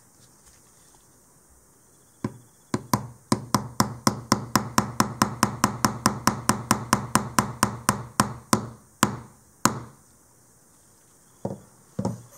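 Small claw hammer tapping a metal pin into an aluminium part set on a wooden block: a quick, even run of about thirty light taps at about five a second, the last few slower. A couple of softer knocks follow near the end.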